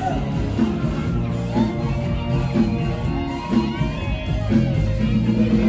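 Live band music, loud and continuous, with a bass line, drums and a singing voice.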